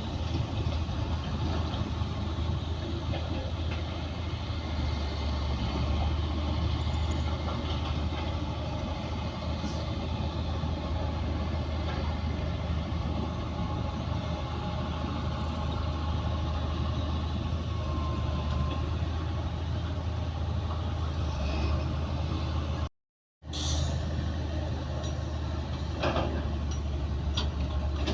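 Bulldozer's diesel engine running steadily with a deep, constant hum. Near the end the sound cuts out for a moment, then returns with a few short metallic clanks.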